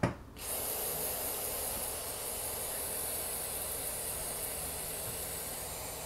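Aerosol carburetor cleaner spraying in one long steady hiss, starting about half a second in after a short click, rinsing dirt off disassembled carburetor parts.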